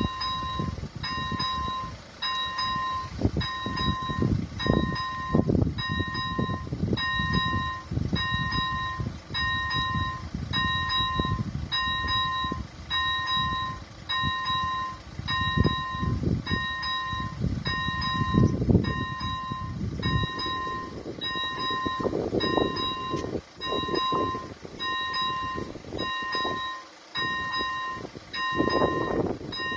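Electronic level-crossing warning bell ringing a repeating ding a little more than once a second while the crossing's red lights flash, warning of an approaching train. An irregular low rumble runs underneath.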